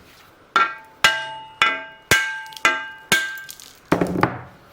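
Hammer blows on the end of a chainsaw crankshaft held in a crank splitter, about two a second, each strike ringing metallically, with a couple of duller knocks near the end. The hammering is to drive the crankshaft out of a stuck, possibly corroded, main bearing.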